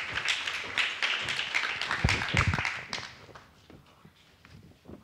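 Audience applauding, a dense patter of many hands that dies away about three seconds in. A few low thumps come just after two seconds.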